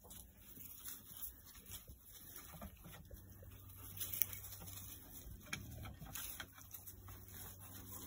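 Piglets rooting and scuffling through dry leaves and dirt: faint scattered rustles and small clicks, with one sharper click about four seconds in.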